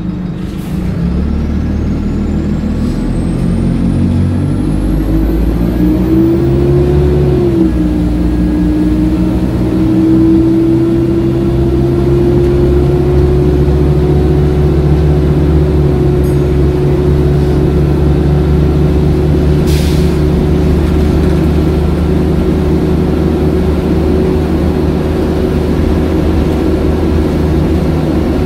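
Wright Cadet single-deck bus heard from inside the saloon, its diesel engine pulling under load up a hill. The engine note climbs for the first several seconds, drops sharply about seven seconds in, then holds steady with a whine above it.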